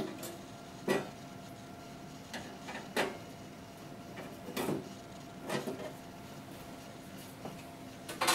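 Sheet-metal side panel of a laboratory water still being handled and taken off: about half a dozen separate knocks and clatters, a second or two apart.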